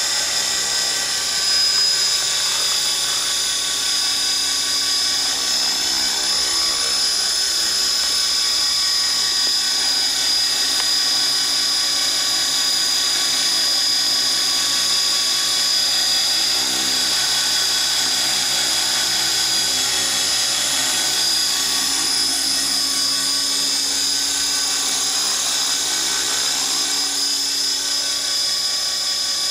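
450-size radio-controlled model helicopter hovering: a steady high-pitched whine from its motor, gears and spinning rotors, its pitch drifting slightly as the throttle and blades adjust.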